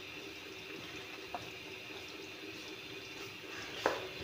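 Onion pakoras deep-frying in hot oil in an aluminium wok, a steady sizzle. Two light knocks cut through it, one about a second and a half in and a louder one near the end.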